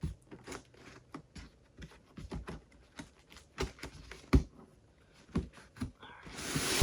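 A rug's shipping package being opened and handled by hand: irregular taps, clicks and crinkles, with one sharp knock a little past the middle and a rasping noise building near the end.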